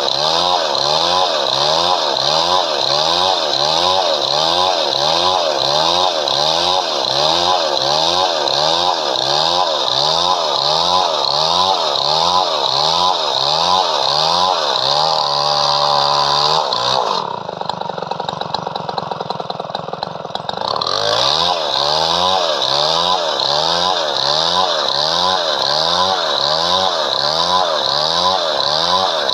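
Chainsaw cutting padauk wood, its pitch rising and falling in a steady rhythm a little over once a second. About halfway through, the pitch holds steady briefly, then the sound goes quieter and duller for a few seconds before the rhythm returns.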